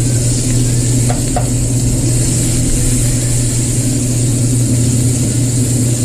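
Ribeye steak sizzling as it sears on a hot ridged grill pan, over a steady low hum. Two faint clicks sound about a second in, as metal tongs touch the pan.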